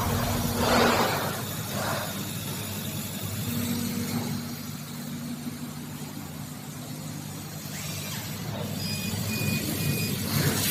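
80 W CO2 laser cutting and engraving machine running with a steady low mechanical hum, with a few brief noisy swells early on. Three short high beeps sound near the end.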